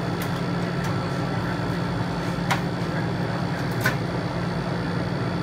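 Steady low machine hum, with a couple of sharp clicks of a metal spatula against a paper cup and the steel cold plate as rolled ice cream is packed into the cup.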